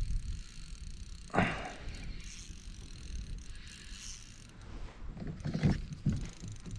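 Spinning reel being wound in while playing a small bream, the reel's gears ticking. A brief sharp sound stands out about a second and a half in, with a few smaller ones near the end.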